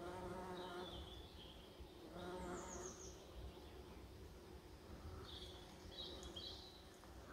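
Bumblebee buzzing in flight close by, in two passes of about a second each: one at the start and another about two seconds in. Faint high chirps sound on and off behind it.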